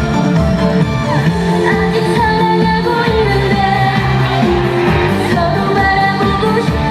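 A female singer singing a trot song live over amplified backing music with a steady beat.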